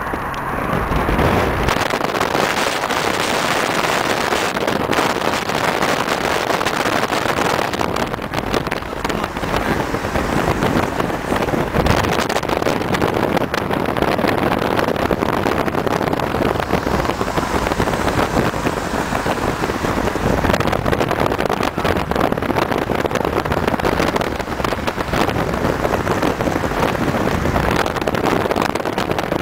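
Ford Galaxie cars driving in convoy, V8 engines running steadily under road and wind noise, with wind buffeting the microphone.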